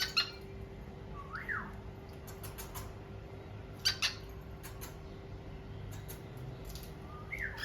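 Cockatiels giving a few short chirps and whistled calls, spaced out with pauses: one near the start, a rising-and-falling whistle about a second in, another chirp around four seconds in and a falling whistle near the end.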